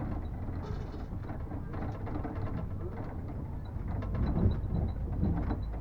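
Sightseeing land train and its passenger trailer in motion: a steady low rumble with rattling and knocking from the bumpy trailer, and a faint quick high ticking in the second half.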